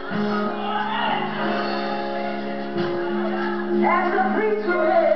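Live gospel group performance: singers over a band accompaniment of drums and guitar, with a low note held under the voices.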